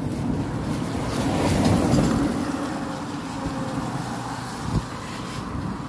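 A car overtaking the bicycle on a wet road: its engine and tyre noise swell to a peak about two seconds in, then ease off as it pulls ahead.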